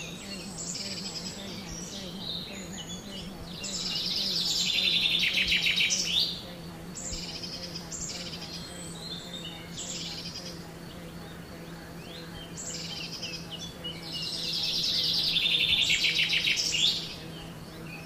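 Woodland birdsong: several songbirds chirping, with a loud, rapid trilled song that falls in pitch, heard twice, about four and fourteen seconds in, over a faint steady low hum.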